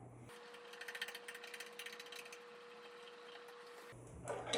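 Faint, rapid mechanical clicking as a toilet seat's hinge mounting hardware is tightened onto its bolt, mostly in the first half.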